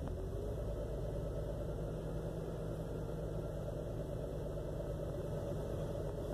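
2001 Jeep Cherokee XJ's inline-six engine idling roughly and unevenly. To the owner it runs as if on only four cylinders, which, with the flashing check engine light, is typical of a misfire.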